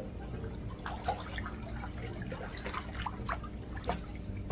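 Light, irregular splashing and dripping of pool water as a small child plays in it.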